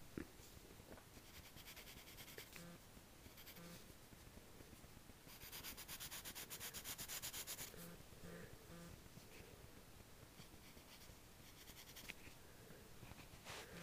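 Graphite pencil sketching on lined notebook paper: faint scratching strokes, with a couple of seconds of quick back-and-forth strokes about midway through.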